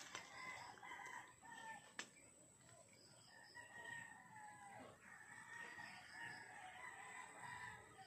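Roosters crowing faintly, several long crows one after another.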